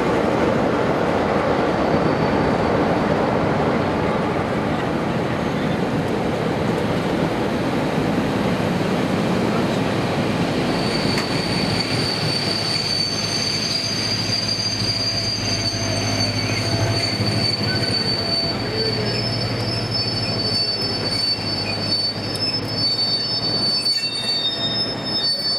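Rake of Pullman coaches rolling slowly past on the rails as the train draws to a stop. From about eleven seconds in, several high, steady squeals of the wheels and brakes rise over the rumble and carry on to the end.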